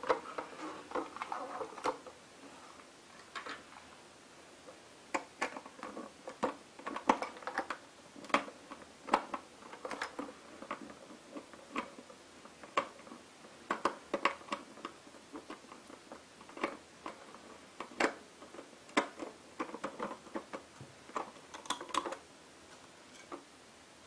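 Hard plastic of a toy vacuum cleaner being handled: irregular clicks, taps and knocks as it is turned over and the screw on its battery cover is undone with a small screwdriver and the cover taken off.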